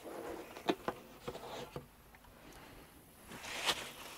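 Cardboard shipping box being opened and handled: scattered soft rustles and taps, then a longer scrape of cardboard near the end.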